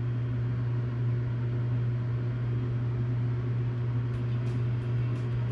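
Steady low electrical hum from a machine's open control cabinet, with a few faint clicks near the end.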